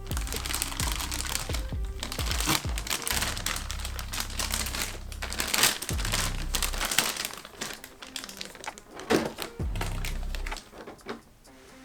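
Packaging being handled and crinkled while a figure is unboxed. The crackling is dense for the first several seconds, then thins to scattered crackles, over background music.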